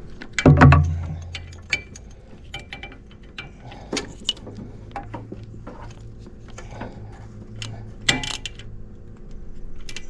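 Irregular metallic clicks and clinks of hand tools working on an engine, with a heavy thump about half a second in and a louder cluster of clicks near the end.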